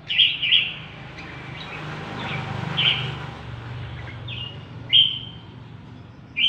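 Caged red-whiskered bulbuls singing in a duel, in short loud sweeping phrases: twice near the start, again about three seconds in, about five seconds in and at the very end. A low hum runs underneath in the middle.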